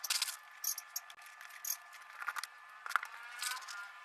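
Faint scattered clicks and scrapes of a phone being handled while rubber bands are stretched around it to clamp its new glass back in place.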